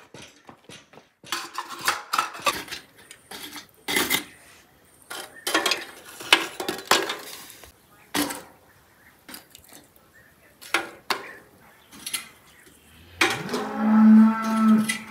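Metal tongs clanking and scraping in a metal pot of charcoal embers, in a run of sharp clicks and knocks. Near the end a cow moos once, one long call that rises and then holds, louder than the clanking.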